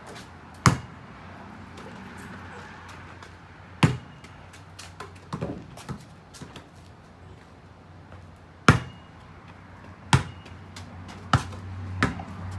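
Several sharp thuds a few seconds apart, with lighter taps between them; a low hum comes in near the end.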